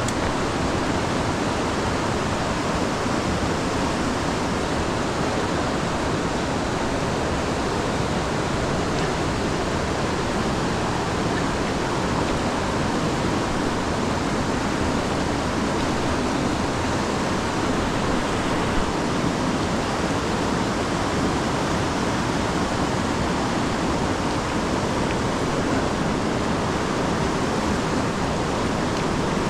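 Steady rush of fast-flowing river water through rapids, an even, unbroken roar.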